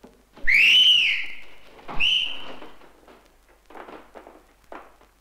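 Loud human whistling from a cinema audience: a sharp whistle that rises then falls, then a second, held whistle about a second and a half later, followed by fainter stirring in the hall. It is protest whistling because the screening has stopped.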